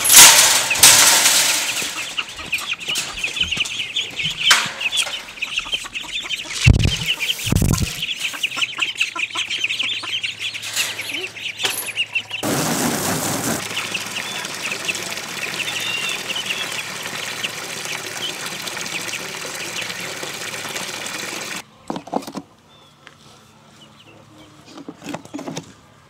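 Poultry calling rapidly over and over for the first half, with a loud knock at the start. Then a garden hose runs water into a plastic kiddie pool, a steady splashing rush for about nine seconds that cuts off, leaving it much quieter.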